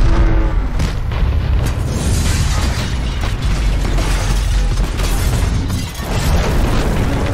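A building explosion from a film soundtrack: a heavy, deep rumbling blast with crackling debris. It dips briefly about six seconds in before building again.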